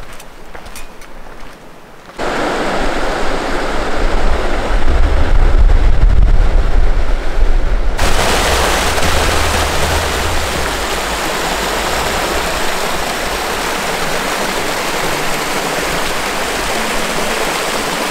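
Snowmelt stream running over rocks, a steady rushing of water that comes in about two seconds in, with a low rumble underneath for a few seconds in the middle.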